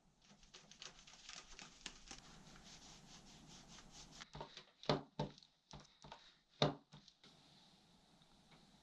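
Rustling and handling noise with many small clicks for about four seconds, then a handful of sharp knocks, the two loudest about a second and a half apart, after which only faint hiss remains.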